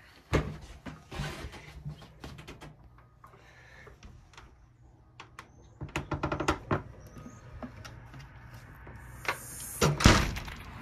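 A house door being unlatched and pushed open: scattered clicks, a quick rattling run of clicks about six seconds in, then a louder bump near the end as the door swings open.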